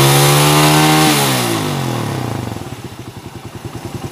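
Motorcycle engine held at high revs, then the throttle is released about a second in and the revs fall away to a steady idle.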